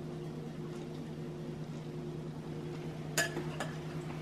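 A metal spoon clinks twice in quick succession against a bowl about three seconds in, over a steady low kitchen hum.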